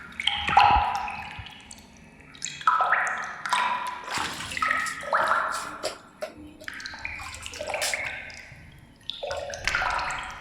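Water pouring and splashing in uneven bursts a second or two apart, each burst carrying a clear tone that shifts in pitch.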